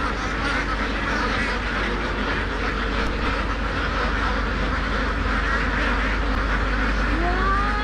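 A large flock of domestic ducks quacking all at once: a dense, steady chorus of many overlapping calls.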